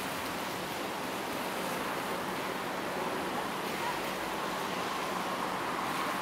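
Steady city street traffic: cars passing on a wet road, a continuous wash of tyre and engine noise. A faint steady tone joins it about four seconds in.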